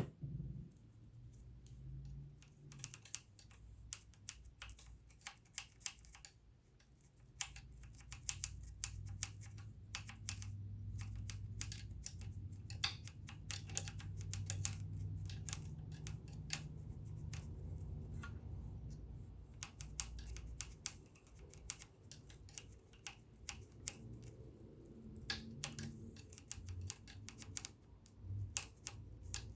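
Irregular sharp clicks and taps of hands and tools working on an all-metal vintage sewing machine during cleaning and oiling, over a low rumble that swells through the middle.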